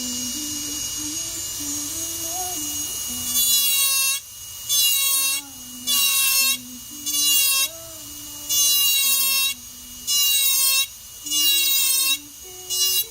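A jeweller's engraving handpiece texturing sterling silver: a high-pitched buzz cut into about eight short bursts, each under a second, as the tip is pressed to the metal and lifted again. A faint low melody runs underneath.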